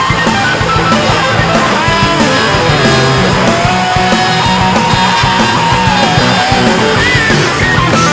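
Rock music with a lead electric guitar playing a melody over a full band.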